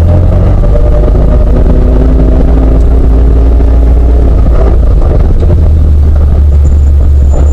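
Competition car's engine running under load, heard very loud from inside the stripped, caged cabin, with a heavy low rumble. A steady engine note holds for about four seconds, then turns rougher.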